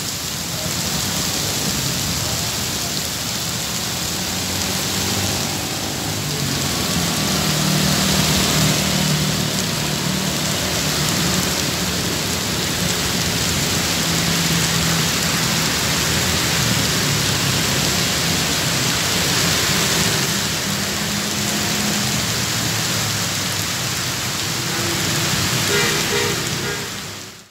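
Heavy rain pouring steadily onto a paved street and pavement, with cars passing through the wet road underneath it.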